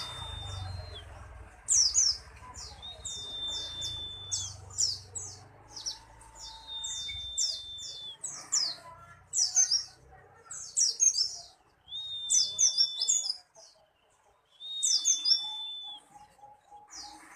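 White-eye (pleci buxtoni) singing: bursts of quick, very high falling chirps, broken every few seconds by a long, level whistled note about a second long that lifts slightly at its end.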